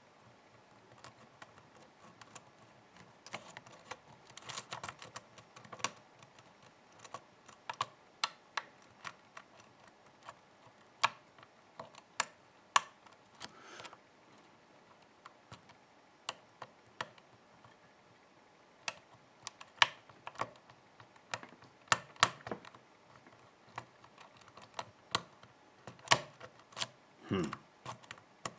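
Lock pick and tension wrench working the pins of a Texas Jim challenge padlock: irregular sharp metal clicks and ticks as the pins are lifted and set, some louder than others.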